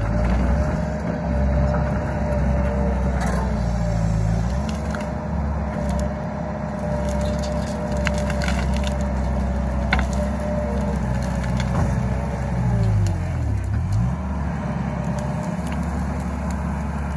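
Tracked excavator's diesel engine running under working load with a steady hydraulic whine, while its bucket pushes and lifts piles of cut conifer branches that snap and crackle. The engine and whine dip in pitch and come back up about thirteen seconds in.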